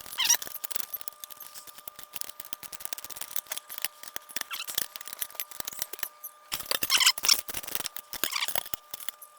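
A 7/16 wrench working a bolt on a motorcycle hitch install, giving many quick light metallic clicks and clinks. A faint steady thin hum sits underneath and stops about two-thirds of the way through.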